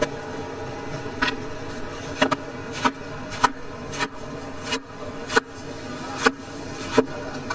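Large kitchen knife slicing through a peeled pineapple and knocking on a wooden cutting board: about nine sharp knocks, roughly a second apart, over a steady low hum.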